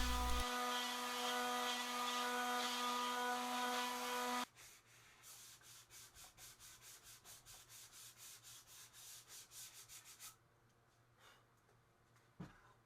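An electric power tool motor runs steadily, probably a sander, and stops abruptly about four and a half seconds in. Then come quick, even strokes of hand sanding on wood for about six seconds, followed by a couple of light clicks.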